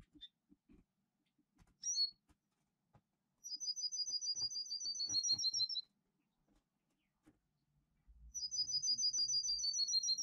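A songbird singing two rapid trills of quickly repeated high paired notes, each lasting about two seconds and dropping slightly in pitch at the end, the second beginning about eight seconds in. A short high chirp comes before the first trill, with faint knocks scattered throughout.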